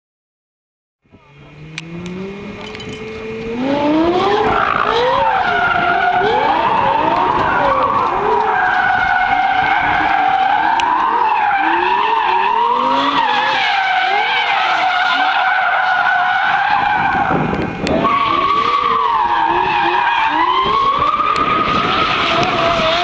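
Lexus LFA's 4.8-litre V10 revving up, then its tyres squealing without a break as the car drifts and spins donuts, the engine rising and falling in pitch under the squeal. The squeal breaks off briefly about three-quarters of the way through, then picks up again.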